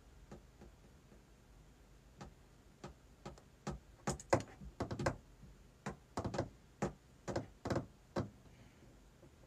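A run of irregular light taps and clicks, some in quick pairs, sparse at first and thickest from about four to eight seconds in.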